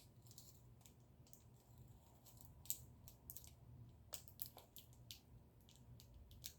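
Near silence: a low room hum with faint, scattered small clicks.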